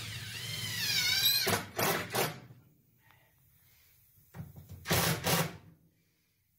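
Cordless drill/driver driving screws into AdvanTech subfloor panels in two short runs, about one and a half seconds in and again about five seconds in. A wavering high whine comes just before the first run.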